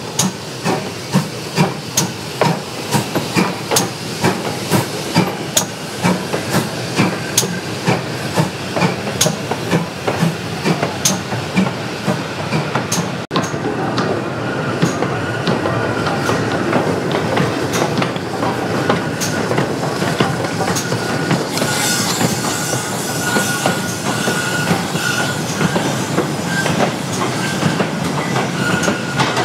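GWR Manor-class 4-6-0 steam locomotive No. 7820 Dinmore Manor hauling a goods train slowly past, with a regular beat nearly twice a second. After a sudden cut, the loco and freight wagons roll by with wheel clatter and hiss, and a faint thin squeal comes and goes in the second half.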